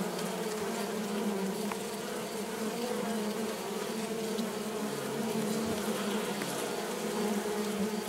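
Steady hum of a honeybee colony heard from inside a top bar hive, many bees buzzing at once.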